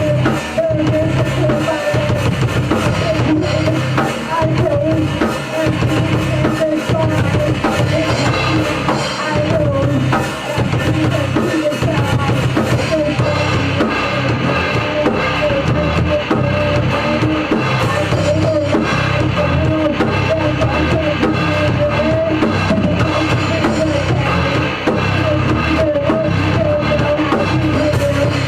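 Rock band playing live at rehearsal, with a drum kit keeping a steady beat under guitar.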